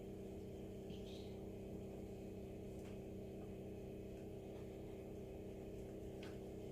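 Faint steady low hum, with a few soft clicks about one, three and six seconds in as metal cookie cutters are pressed into and lifted from soft oat dough on a silicone baking mat.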